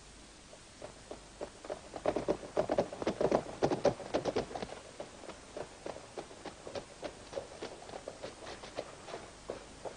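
Horse hooves clopping on a dirt street. A ridden horse passes close, its hoofbeats loudest from about two to four and a half seconds in, and lighter, more distant hoofbeats carry on after.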